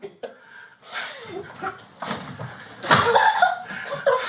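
A heavy person shifting their weight on a bed, with rustling, a thump about three seconds in, and short gasps and grunts from the people on it.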